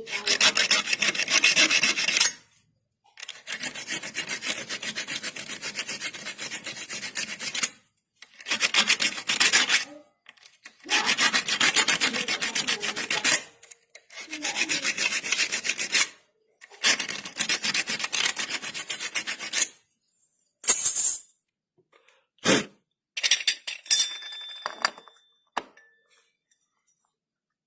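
Hacksaw rasping back and forth on the metal of a scooter CVT pulley's toothed groove, cutting it wider so the pulley will fit: about six runs of quick strokes, each two to three seconds long with short pauses, then a few shorter scrapes and clicks near the end.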